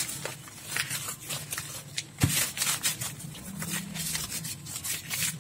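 Paper towel rubbing and crinkling as a photocopier fuser roller is wiped down by hand, in quick irregular scrubbing strokes.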